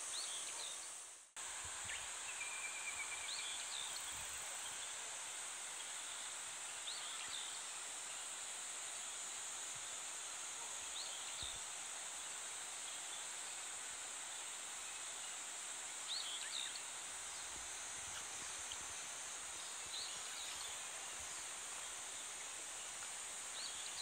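A chorus of cicadas keeps up a steady, even high drone, with short bird calls breaking in every few seconds over it. The sound fades out and cuts back in about a second in.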